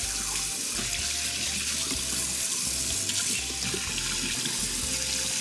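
Kitchen tap running steadily into a stainless steel sink, water splashing over a gutted crappie and the hands rubbing out its belly cavity.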